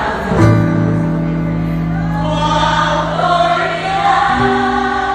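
Live gospel worship music: the band holds long sustained chords that change about half a second in and again after four seconds, with voices singing over them.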